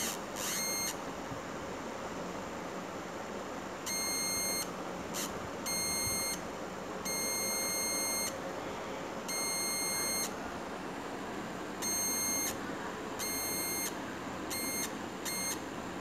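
High-pitched buzzy electronic tone from a Drawdio-style oscillator driven by an IR obstacle sensor, played through the computer. It switches on and off about nine times, each burst half a second to a second long, as an object is brought in front of the sensor and taken away, over a steady hiss.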